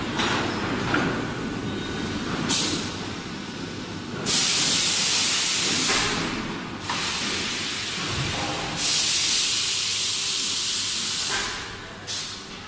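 Air hissing from a high-frequency PVC welding machine: two long hisses of about two and a half seconds each, with short puffs before and after, over a low steady factory hum.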